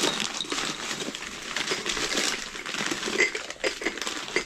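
Hands rummaging through a box of glassware: a steady run of clattering and clinking, with a few brief ringing notes.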